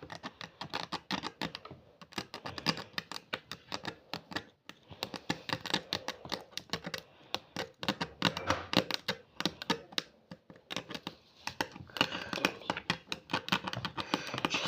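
Needle scratching and picking at dalgona honeycomb candy to cut out the stamped shape: a rapid run of small clicks and scrapes in irregular bursts, with short pauses about two seconds in, near four and a half seconds, and around ten seconds.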